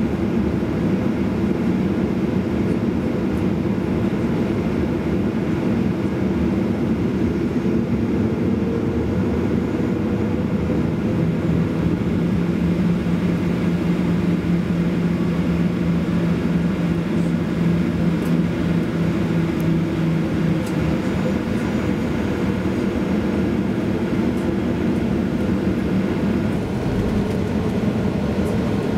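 Cabin noise of a Boeing 737-800 taxiing: the steady drone of its CFM56 jet engines at taxi power, with a low hum that grows stronger for about ten seconds midway.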